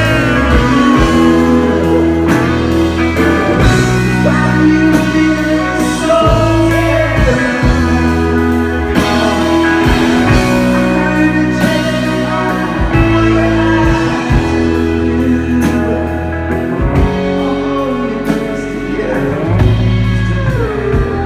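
Live rock band playing: electric guitar, bass and drums with a man singing, steady drum hits under chords that change every second or two.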